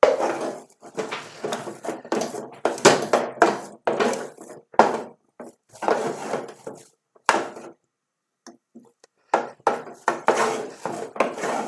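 Wooden spoon stirring and mashing thick cabbage fufu dough in an aluminium saucepan, scraping and knocking against the sides of the pot in irregular strokes. The fufu is at its final stiff, dough-like stage. The strokes stop for about two seconds past the middle, then resume.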